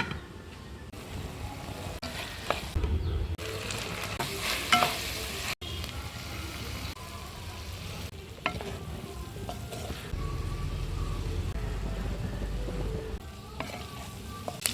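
Minced chicken (keema) frying in a pan, sizzling steadily, as a spoon stirs it with scattered clinks and scrapes against the pan. A brief break in the sound comes about five and a half seconds in.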